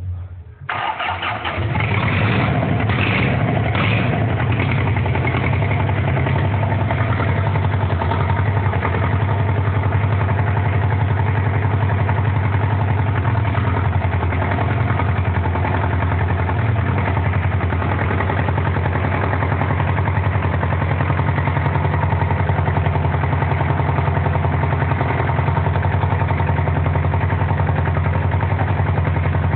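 Isuzu C190 four-cylinder diesel engine starting about a second in, then idling steadily.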